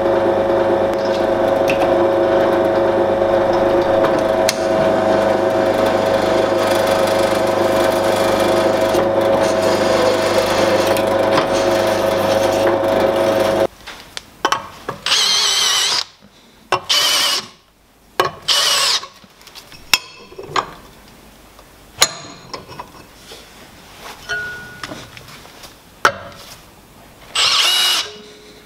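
A bench drill press runs steadily, drilling a steel bracket, and stops abruptly about fourteen seconds in. After that a hand-held drill with a countersink bit runs in several short bursts with a high whine, cutting into the steel plate.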